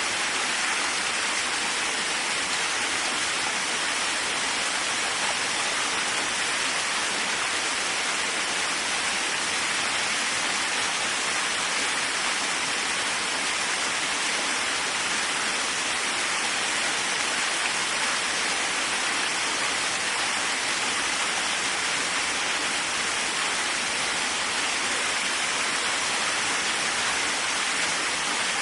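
Waterfall, water falling and splashing in a steady, unbroken rush with a bright, hissing character.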